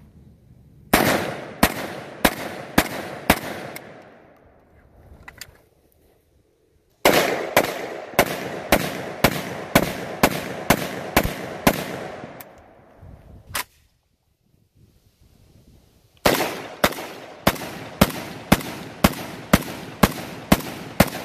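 AWS SPETS-12 semi-automatic 12-gauge shotgun firing in three rapid strings, about two shots a second, with short breaks between them. The strings are about five, ten and ten shots long.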